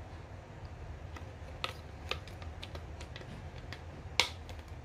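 Hard plastic parts of a toy playset base clicking and knocking as they are handled and pressed together. There are a few small clicks, then one louder snap about four seconds in, a tight-fitting part going into its slot.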